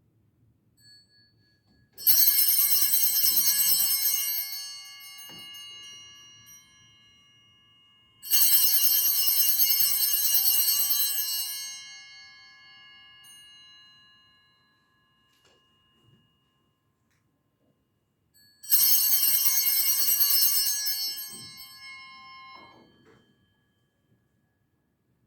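Bells rung in three separate bursts, each shaken hard for two or three seconds with high ringing tones, then left to ring out and fade; the second comes about six seconds after the first and the third about ten seconds later.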